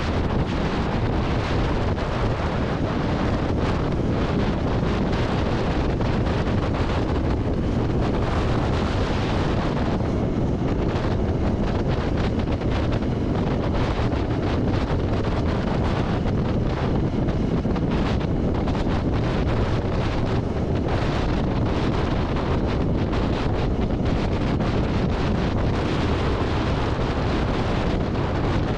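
Steady wind rush on the microphone of a rider on a moving motorcycle, with the 2021 Yamaha XSR900's engine and road noise underneath.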